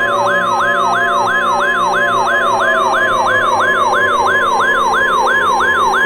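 Electronic yelp siren sweeping rapidly up and down in pitch, about three and a half sweeps a second, over a steady high alert tone like the NOAA Weather Radio warning alarm tone, with low sustained tones underneath. The alert sounds herald a tsunami warning.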